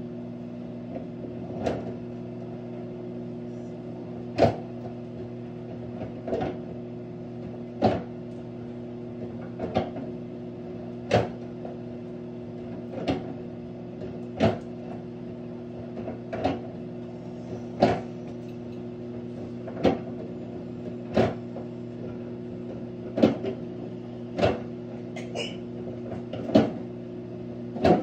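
Sunbeam countertop microwave oven running: a steady electrical hum, with a short click or knock repeating about every one and a half to two seconds.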